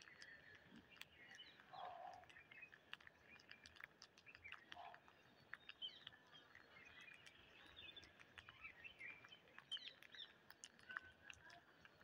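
Faint, scattered bird chirps over many small, sharp clicks of rose-ringed parakeets' beaks pecking rice grains off a concrete floor.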